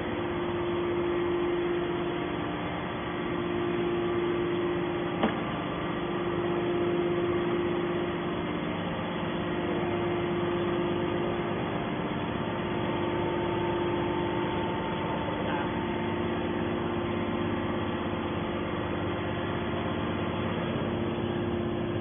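Steady mechanical hum with a constant mid-pitched tone from a hydraulic scrap-metal baler's pump unit running, with a single short click about five seconds in.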